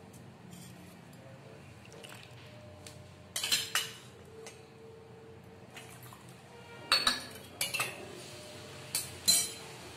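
Steel kitchenware clinking and knocking: a few sharp metallic clicks in small clusters about three and a half, seven and nine seconds in, over a quiet background.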